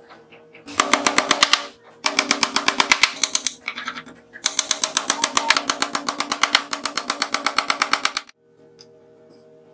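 A hammer tapping rapidly on a plywood panel, about ten blows a second, in three runs with short pauses between them. The blows seat a glued top panel onto a plywood box.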